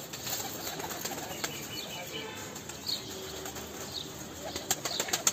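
Domestic pigeons' wings flapping, with a quick run of sharp wing claps near the end.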